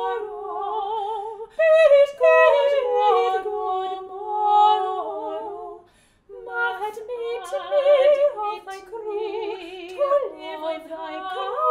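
Two soprano voices, one singer recorded twice, singing a duet without accompaniment in long held notes with vibrato. Both break off briefly about six seconds in, then go on.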